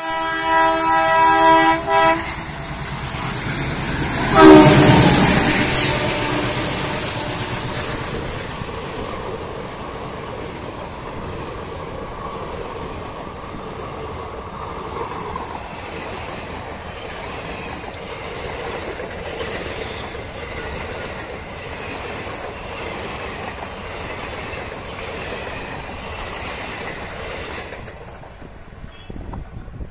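An Indian Railways passenger train passing at speed. The locomotive's horn sounds for about two seconds, then blasts again about four seconds in, the loudest moment. After that comes a long run of coaches rumbling by with wheels clattering over the rail joints, which stops near the end as the last coach goes past.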